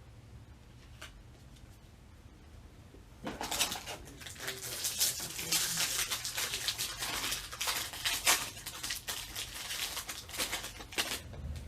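Foil wrapper of a Topps baseball card pack being torn open and crinkled, starting about three seconds in as a dense crackling rustle with many small clicks, then stopping near the end.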